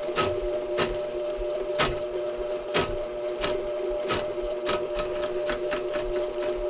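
Electric drain-cleaning machine running with a steady hum while its spinning cable is fed by hand into a washing machine drain line. Irregular sharp clicks and clacks from the cable come about once or twice a second.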